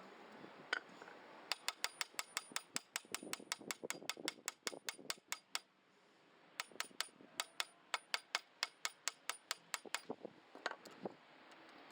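Rapid, evenly spaced sharp clicks, about five a second, in two runs of a few seconds with a short break between, followed by a couple of single knocks near the end.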